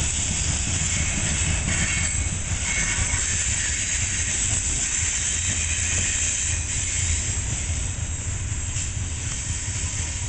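Freight train of open hopper cars rolling past on steel rails: a steady low rumble with a hiss, easing slightly near the end as the cars move away.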